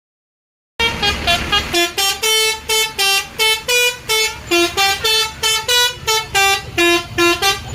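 Bus 'telolet' musical air horn (Basuri type) playing a quick melody of short, clipped notes at about three a second, starting just under a second in.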